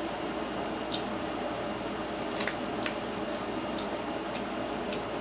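A few faint, sharp clicks and cracks of a steamed crab's shell being pried open by hand, over a steady background hiss.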